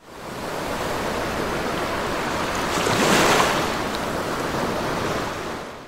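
Intro sound effect under an animated logo reveal: a rush of noise that fades in, swells to its loudest about three seconds in, then eases off and fades out.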